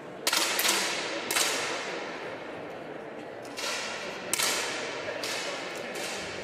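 10 m air pistols firing a competition shot: about seven sharp cracks at irregular intervals, as the finalists shoot one after another. Each crack has a short reverberating tail.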